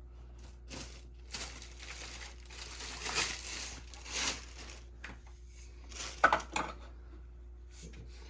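Rustling and crinkling handling noise as the vacuum's parts and accessories are handled, in several bursts over the first half, then a quick cluster of clicks and knocks about six seconds in.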